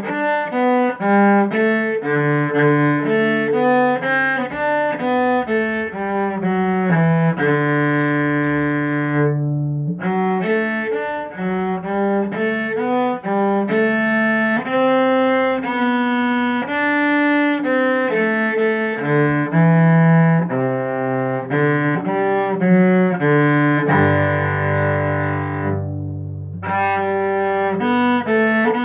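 Solo cello, bowed, playing a melody of mostly short notes, with a long held note about a third of the way in and a longer, lower held note near the end.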